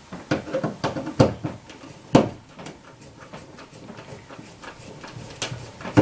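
Irregular clicks and scrapes of a hand screwdriver tightening the mounting screws of an electrical outlet into its wall box, the loudest click about two seconds in.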